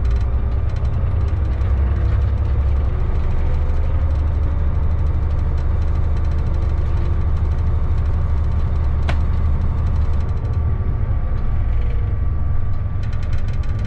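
Inside the cab of a light locomotive running along the track: a steady heavy low rumble with a faint steady whine above it, easing somewhat after about ten seconds. Rapid clicking comes at the start and again near the end, with one brief sharp squeak about nine seconds in.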